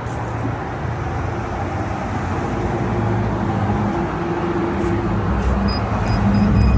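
Steady low rumbling noise like a running vehicle or traffic, gradually getting louder, with a few faint short high beeps near the end.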